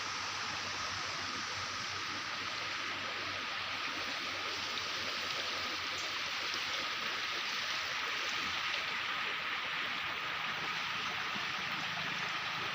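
Running water rushing steadily and evenly, with a thin, steady high tone running through it.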